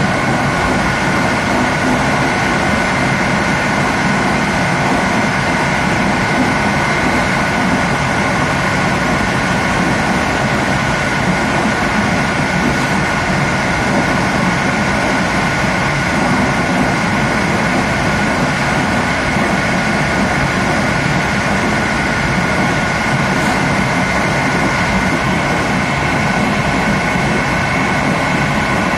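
Passenger train running at speed, heard from the rear of its last carriage: a steady rumble and rush of the wheels on the rails, with two steady high tones held above it.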